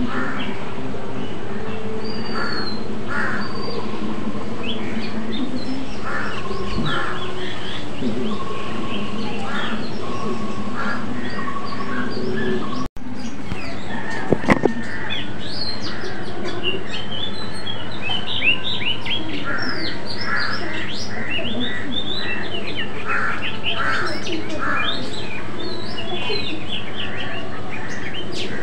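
Many birds chirping and calling without pause, with a brief dropout about halfway through.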